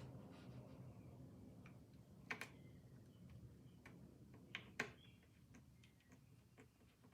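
A few faint, sharp clicks and ticks, the loudest two close together a little after the middle, as the tone arm and back bracket of a Victor VV-IV Victrola phonograph are handled and tightened, over a low hum.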